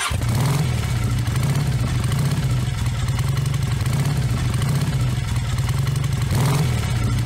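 Suzuki motorcycle engine running steadily at low road speed, an even low throb with wind and road noise over it.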